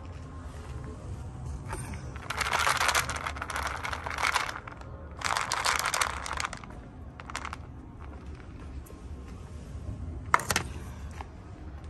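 Two spells of rustling and rattling as a small plastic tray of dry cat food is carried and jostled, then a single sharp clack near the end as the tray is set down on the pavement.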